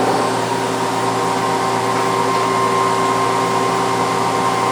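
Mazak QT Nexus 300 CNC lathe running a program: a steady mechanical whine with several held tones over a constant rush of noise.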